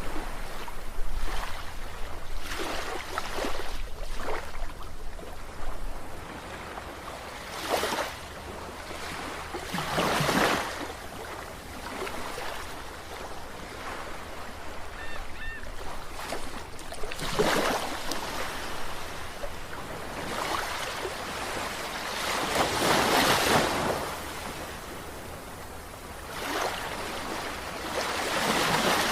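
Sea waves washing in, the surf rising and falling in a swell every few seconds.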